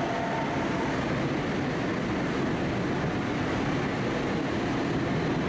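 Tokyo Metro 05 series chopper train running at speed, heard inside the passenger car as a steady rumble and rolling noise. A faint high whine fades out about half a second in.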